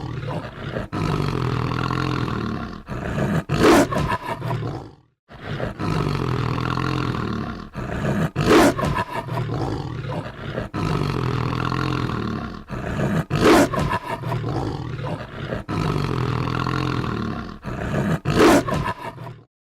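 Werewolf growl sound effect: a sustained low growl building to a loud roar, repeating about every five seconds. It cuts off abruptly just before the end.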